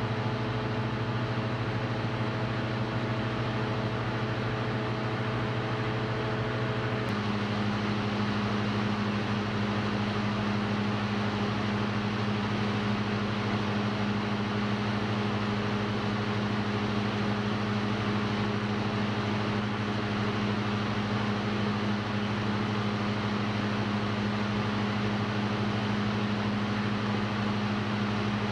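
Diesel engine and propeller of a Cessna 172 heard in the cockpit: a steady drone, with an abrupt change in tone about seven seconds in, after which it holds steady again.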